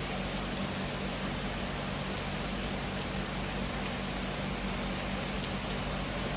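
Steady rain shower hissing evenly on roofs, paving and foliage, a few closer drops ticking now and then. The shower is picking up in intensity.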